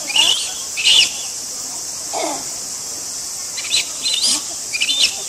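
Japanese macaque infant crying with short, high-pitched calls, two in the first second and three more near the end, with one lower call in between. These are the distress cries of a youngster left behind by the adult female it clings to.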